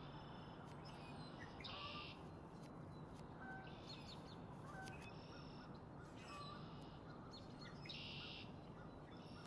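Male red-winged blackbird singing its buzzy conk-la-ree song twice, about two seconds in and again near the end. Short thin chirps and whistles come in between, over a steady low background hiss.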